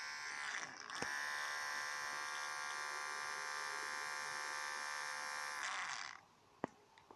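Small electric motor and gears from an old electric shaver driving a solder wire feeder, running with a steady buzz. It dips briefly about a second in, runs on, and stops about six seconds in, followed by a single click.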